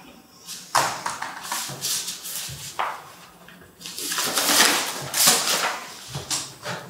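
Sheets of paper rustling and crackling as they are handled and shuffled, in a run of uneven bursts, loudest about two-thirds of the way through.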